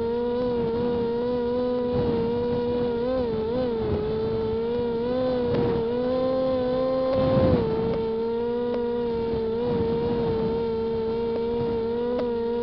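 Electric motors and propellers of a WLZX W500 RC model running with a steady high whine that wavers slightly in pitch. About seven seconds in the whine swells and rises briefly, then drops back.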